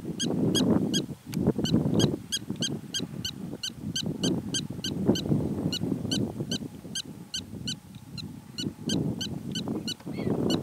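Black-tailed prairie dog giving its alarm call: a long, steady run of short, sharp, high chirps, about three a second, over a gusty low rumble.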